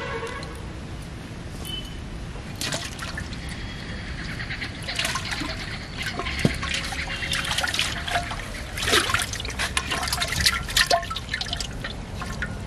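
Pond water splashing and dripping: a run of small plops, drips and trickles, sparse at first and busier from a few seconds in.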